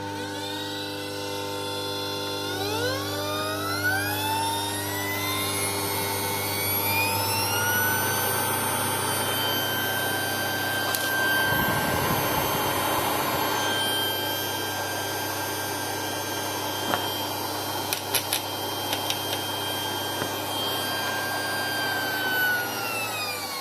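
Electric bench grinder/polisher with stepless speed control, its motor whine rising smoothly in pitch as the speed is turned up, holding steady at high speed, then falling as the speed is turned back down near the end. Partway through, a rough rubbing noise joins the whine for a few seconds, along with a few short clicks.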